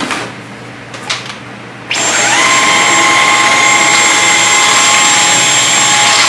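Dyson V11 cordless stick vacuum switched on about two seconds in: its motor spins up with a quick rising whine, then runs loud and steady at a high pitch. A couple of light knocks come before it.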